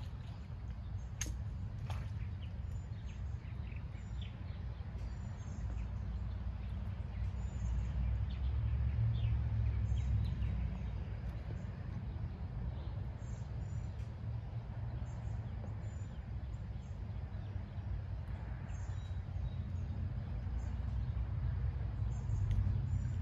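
Outdoor lakeside ambience: a steady low rumble that swells now and then, with short high bird chirps scattered throughout.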